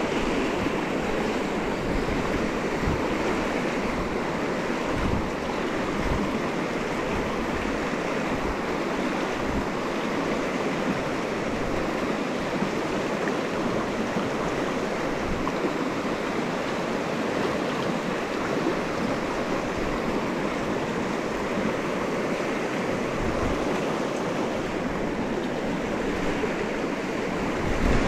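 Steady rush of a shallow, rocky river riffle flowing over ledges and stones, with wind rumbling irregularly on the microphone.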